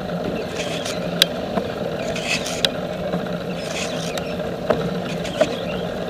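Steady rolling noise and rattle picked up by a camera on a moving bicycle, with a few sharp clicks scattered through.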